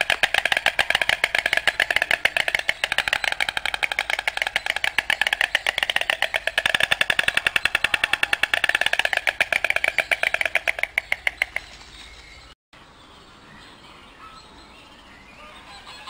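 White storks clattering their bills, a rapid rattling run of clicks that swells and eases in waves: the storks' bill-clattering display. The clattering stops about twelve seconds in, giving way to faint bird chirps.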